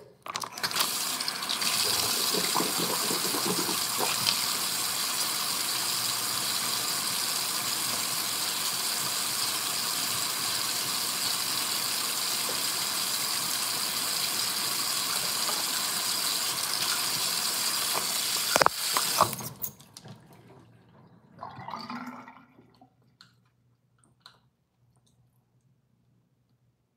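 Water tap running in a steady hiss for nearly twenty seconds, then shut off abruptly, with a click just before it stops. A brief low sound follows a couple of seconds later.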